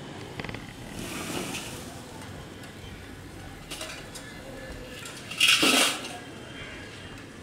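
Round metal pans of a hand balance scale clinking and clanking as they are handled, with one louder clatter about five and a half seconds in.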